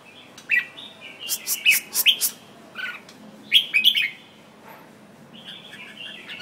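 Caged red-whiskered bulbul singing: short, loud whistled phrases in several bursts over the first four seconds, with a few sharp clicks among them, then softer chattering near the end.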